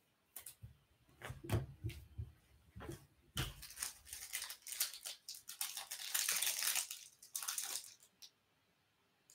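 Clear plastic card sleeves and holders rustling and crinkling as trading cards are handled and slid in. A few light taps and clicks come in the first few seconds, then steady crinkling runs for several seconds before it stops.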